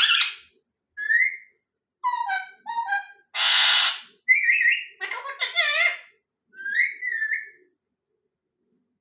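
Parrot giving a string of short whistled calls, some rising and some falling in pitch, with one harsh, rasping call lasting about a second midway.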